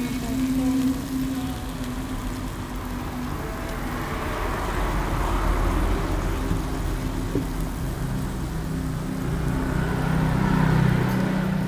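Road traffic passing close by: vehicles swell past about halfway through and again near the end.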